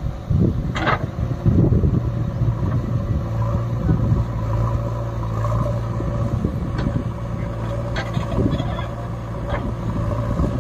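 JCB 3DX backhoe loader's diesel engine running steadily under load while the backhoe digs soil and swings to dump it, with a few short knocks from the working arm and bucket.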